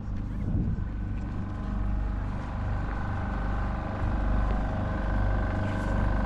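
A steady engine hum with a constant whine over a low rumble.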